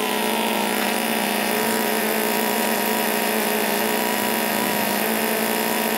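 Engine running steadily at an even pitch, with no revving or changes.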